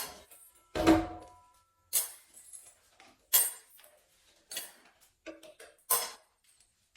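Metal tools clanking against each other as they are handled: about six separate clanks, the loudest about a second in ringing on briefly.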